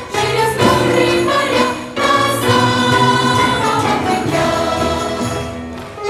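Children's and youth choir singing a lively song in chorus over instrumental accompaniment.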